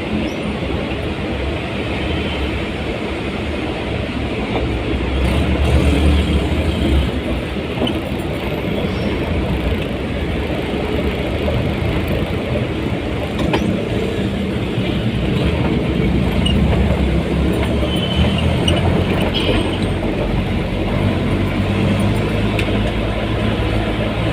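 Steady low rumble of a moving vehicle, with a few faint rattles and clicks.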